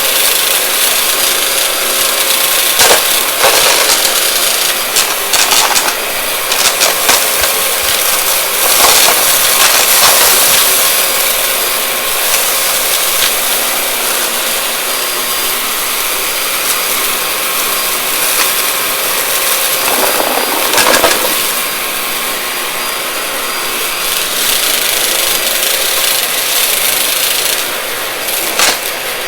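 Vacuum cleaner running with a steady motor whine, crackling and rattling as it sucks up crunchy debris.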